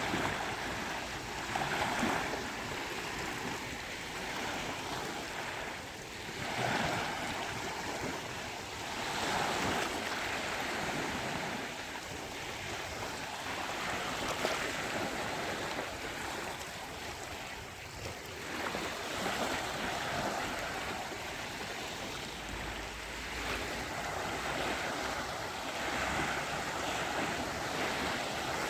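Sea waves washing onto a beach, the surf swelling and easing every few seconds in a continuous wash.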